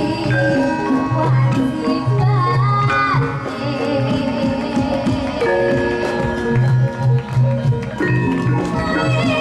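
Javanese gamelan-style accompaniment with held pitched notes and repeated low kendang drum strokes, with a woman singing over it into a microphone.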